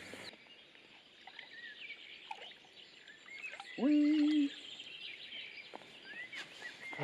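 Small birds chirping and calling, with one short low call about four seconds in that slides up and then holds its pitch for about half a second.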